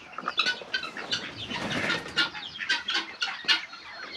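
Birds flapping their wings, with a busy run of short, sharp chirps and calls and a louder burst of flapping and rustling in the middle.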